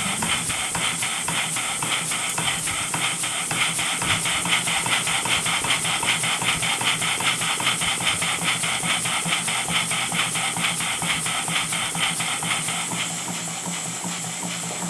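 Model steam engine with Walschaert slide-valve gear running on compressed air: a fast, even rhythm of hissing exhaust puffs from the cylinder.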